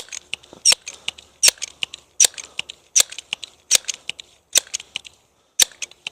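Footsteps crunching at a steady walking pace, about one step every three quarters of a second, slowing slightly near the end.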